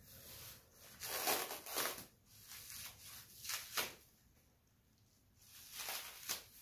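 Plastic packing wrap crinkling and rustling in several short bursts as a wrapped bicycle fork is handled, with a quiet pause in the middle.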